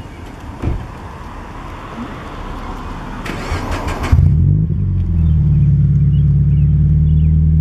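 A car door shuts with a thump, then the Subaru BRZ's 2.0-litre flat-four is cranked by the starter for about a second. It catches about four seconds in, flares briefly and settles into a loud, steady idle.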